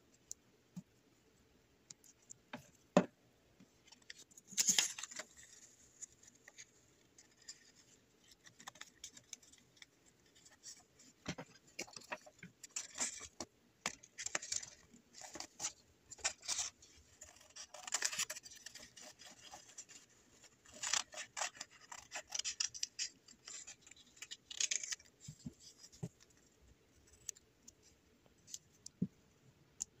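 Paper being cut with scissors: a run of crisp snips and paper rustles through the middle, with scattered small taps and clicks of a glue stick and paper being handled on a tabletop before and after.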